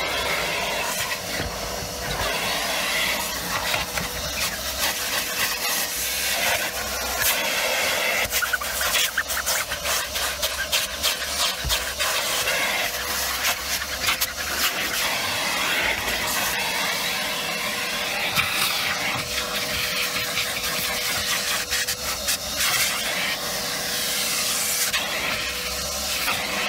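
Canister vacuum cleaner running with a steady motor whine and a rush of air through the hose, as it is worked over car footwell carpet. Frequent small clicks and rattles run through it.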